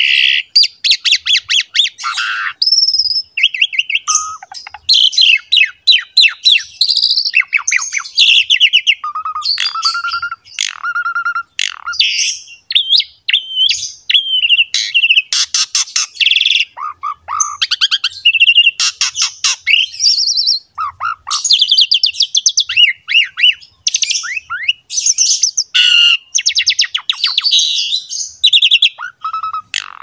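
Jalak suren (pied starling) in full song: a long, unbroken, varied run of rapid chattering trills, clicks, squeaks and short whistled notes.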